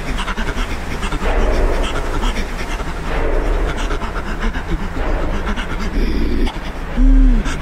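A man's voice in sound-poetry performance: rapid, heavy panting breaths broken by rough, rasping vocal stretches. Near the end comes a loud, short voiced cry that rises and falls in pitch.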